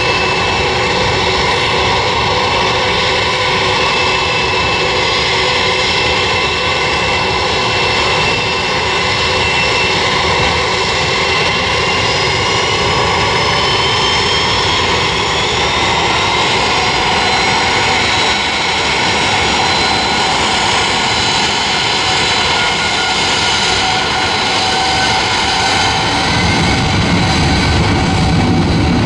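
Airbus A320-family airliner's turbofan engines running at low thrust while it lines up on the runway: a steady jet whine with several held tones, one rising slowly midway. Near the end a deeper rumble grows as the engines spool up for takeoff.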